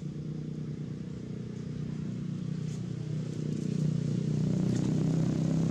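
An engine running with a steady hum that grows louder about halfway through.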